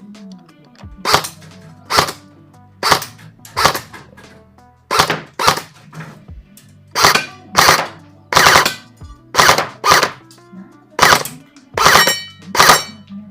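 Airsoft M16-style DMR rifle firing single shots in a steady series, about fifteen sharp cracks roughly one every half-second to second.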